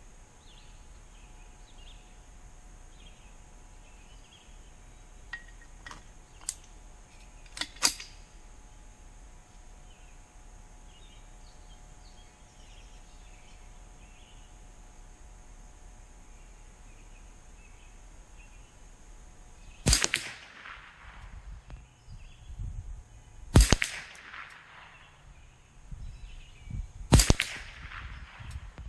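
Three shots from a Savage A22 semi-automatic rimfire rifle, spaced about three and a half seconds apart, each followed by a short echo. A few light clicks come well before the first shot.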